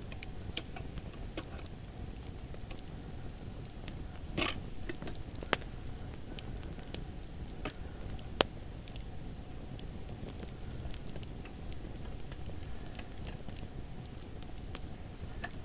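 Wood campfire crackling with scattered sharp pops, a louder pop about eight seconds in.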